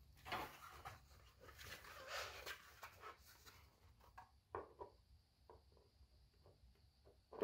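Faint rustling while 3D-printed plastic helmet parts are handled, then a few light taps and ticks, close to near silence.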